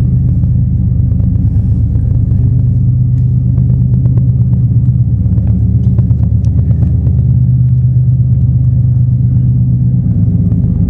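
Diesel locomotives of a slow, heavy freight train labouring upgrade toward the tunnel, heard from inside the tunnel as a loud, steady low drone that is eerie.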